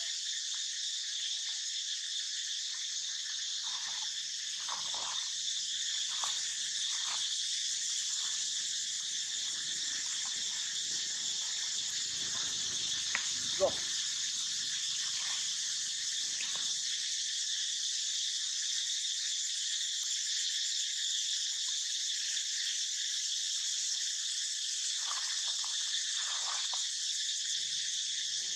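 A steady, high insect drone throughout. A few faint short lower sounds come and go, and there is one sharp click about halfway through.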